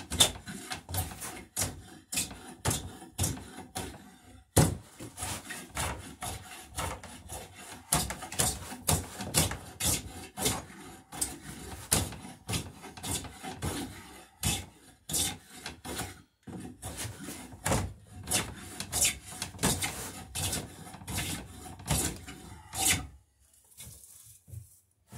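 Small bench plane taking shavings off an oak knee clamped in a vise, cutting with the grain in repeated strokes, about two a second. The strokes stop shortly before the end.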